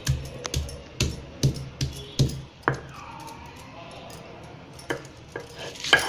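Stone pestle (batta) pounding garlic, green chillies, amla and coriander on a flat grinding stone (sil batta): dull knocks about two a second, a pause midway, then more knocks near the end, the last the loudest. Music plays faintly underneath.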